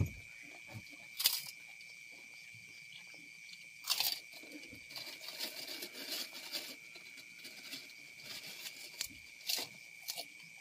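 Scattered sharp crunches and crinkles of fried kerupuk crackers and plastic wrapping as people eat with their hands, the loudest about a second and four seconds in. A steady high insect chirring runs underneath.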